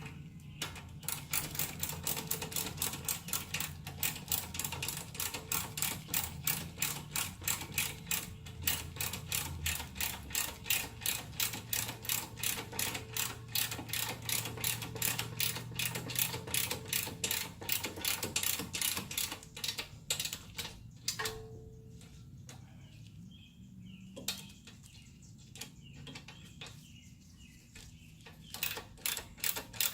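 Hand ratchet wrench clicking quickly and evenly, about four clicks a second, as bolts are run in. The clicking stops about two-thirds of the way through and starts again near the end.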